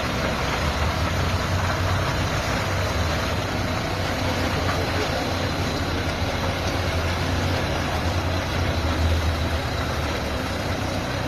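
Heavy truck's diesel engine running with a steady low drone.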